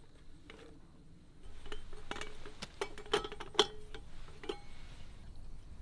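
Light metal clicks and clinks from an aluminium camping kettle's lid as it is handled and lifted off, some leaving a short metallic ring. The loudest clink comes about three and a half seconds in.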